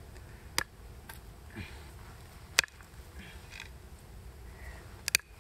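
Sharp clicks and cracks of a knife blade pressed into a bone to split it: a sharp click, a louder crack about halfway through and a quick double click near the end, with faint scraping between.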